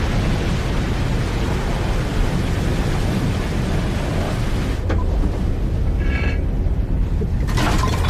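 Rogue wave breaking over a sailboat: a loud, continuous rumbling rush of crashing water. Near the end, dishes start rattling and clattering in a galley rack.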